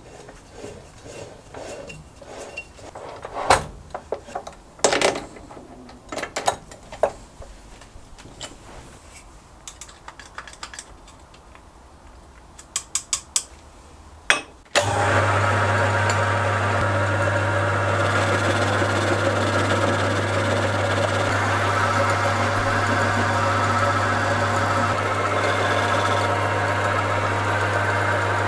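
Metal clicks, clinks and knocks of tooling being handled at the spindle and chuck of a Halifax 524 lathe. About halfway through, the lathe's electric motor switches on abruptly and runs steadily with a low hum and a whir from the belt and gears.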